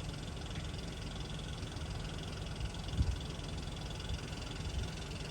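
Steady low rumble of outdoor background noise with a faint even hiss above it, and one soft thump about three seconds in.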